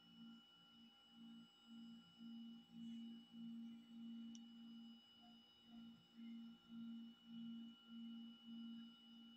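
Near silence with a faint low hum that swells and fades about twice a second.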